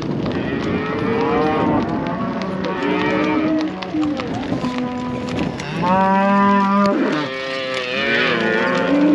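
Several animals calling: long, overlapping calls that rise and fall in pitch, the loudest about six seconds in.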